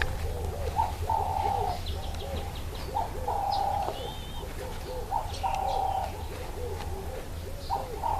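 A dove cooing: four phrases, each a short note followed by a longer held note, repeating about every two and a half seconds, with faint chirps of small birds in between.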